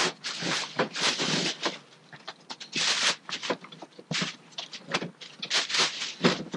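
Clear plastic wrapping on a new snowblower rustling and crinkling in irregular bursts as it is handled and pulled off, with a few light knocks.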